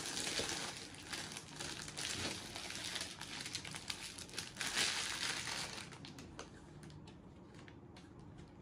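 Gift wrapping crinkling and rustling as a present is unwrapped by hand. The rustling dies down about six seconds in, leaving quieter handling with a few light clicks.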